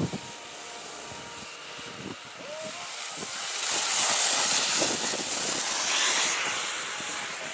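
Skis scraping and hissing over packed snow in a skidded turn, building to its loudest a few seconds in as the skier skids past close by, with wind on the microphone. A sharp knock right at the start.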